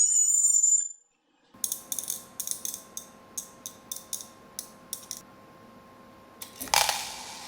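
Background music for about the first second. After a short gap comes a run of sharp mechanical clicks, roughly two a second, over a steady hum. Near the end a louder hiss sets in and fades.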